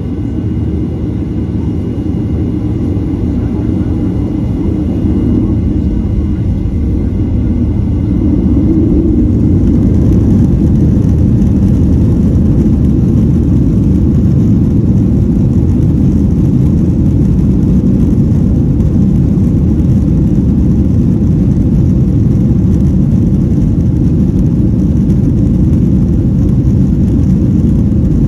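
Inside the cabin of a Boeing 737-800, its CFM56-7B jet engines spooling up to takeoff power, the sound growing louder over the first ten seconds or so. It then settles into a steady loud rumble of engines and wheels as the plane accelerates down the runway.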